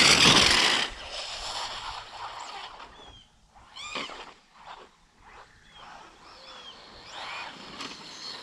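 Traxxas Slash Ultimate RC truck going by at full throttle on a speed run: a loud rush of brushless motor and tyre noise for about the first second, then dying away. Several faint bird chirps follow.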